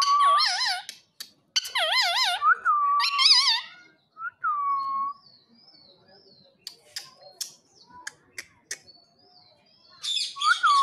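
Rose-ringed (Indian ringneck) parakeet calling: loud, wavering, warbling calls in short bursts over the first three and a half seconds, a single held whistle at about four seconds, then faint high chirps and scattered clicks, and another loud call near the end.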